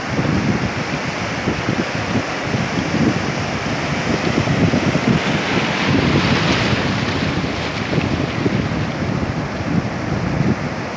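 Sea surf breaking and foamy water washing up over a sandy beach, with wind buffeting the microphone. The wash swells louder about midway.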